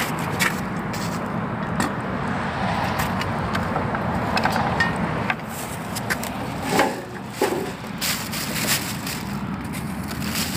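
A few knocks, then a metal hive tool scraping dead bees off a wooden-framed mesh hive bottom board into a plastic bag, in irregular scrapes and clicks over a steady rushing background noise.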